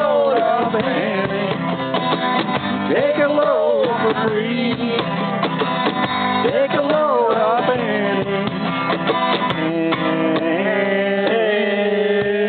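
Acoustic guitar strummed over a cajon beat, with voices singing along.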